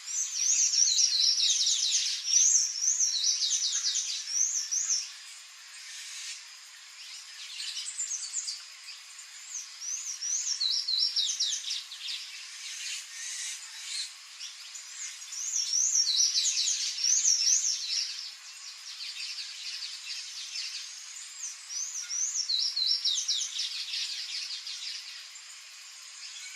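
A songbird singing in bouts of rapid, high, squeaky twittering notes. The loudest run of notes comes in the first few seconds, with more bouts around the middle and near the end.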